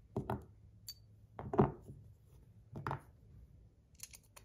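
Metal fidget-spinner parts being handled while buttons are fitted onto a tungsten spinner: three short knocks about a second and a half apart, the middle one loudest, with lighter clicks between.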